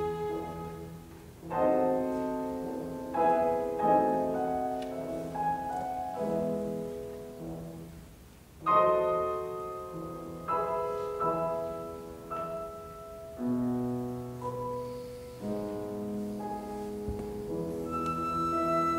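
Classical music for grand piano and orchestra: the piano strikes a series of chords, each ringing out and fading, over low notes held by the orchestra. Near the end, sustained high notes from the orchestra come in.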